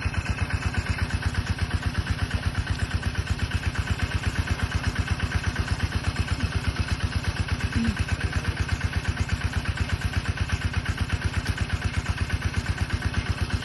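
A small engine running steadily at idle, with an even pulse of about six to seven beats a second.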